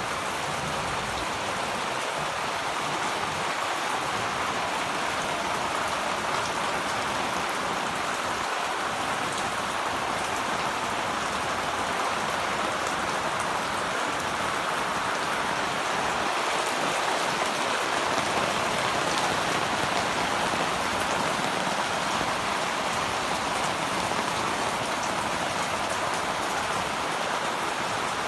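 Heavy rain pouring down steadily in a rainstorm, an even hiss that swells slightly about two-thirds of the way through.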